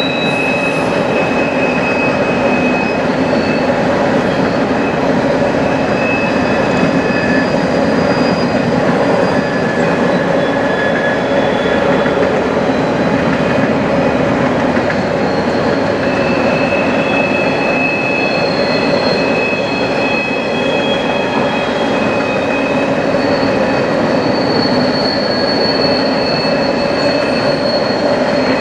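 Coal train's open-top coal cars rolling past on a curve: a steady, dense rumble of wheels on rail, with high, drawn-out wheel squeals that come and go every few seconds.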